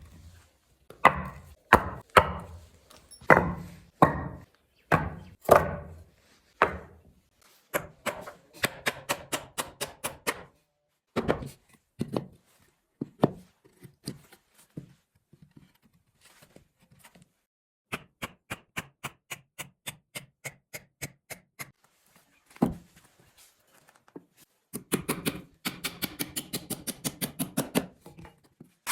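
Repeated knocks of hand tools striking wood. Heavy blows come about once a second for the first several seconds, then quicker runs of lighter, evenly spaced taps with pauses between them.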